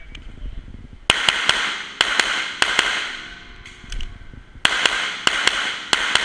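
Glock 34 9 mm pistol firing rapid shots in two quick strings with a short pause of about two seconds between them, each shot ringing in the reverberant indoor range.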